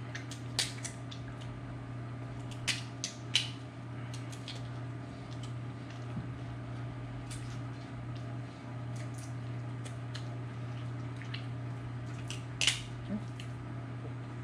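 Shrimp being peeled and eaten: scattered sharp clicks and wet squishes of shell and fingers, a few close together around three seconds in and the loudest near the end, over a steady low hum.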